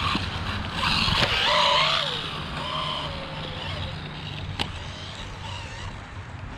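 Rlaarlo AMX12 RC buggy's electric motor whining as it is throttled, the pitch rising and falling, loudest a second or two in. There is one sharp click about two-thirds of the way through.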